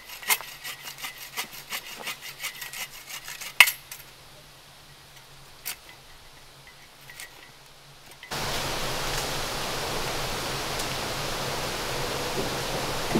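Stones and wood being handled at a stone fire ring: a quick, uneven run of small knocks and clinks, with one sharper knock about three and a half seconds in, then a few scattered ones. After about eight seconds the sound changes abruptly to a steady hiss.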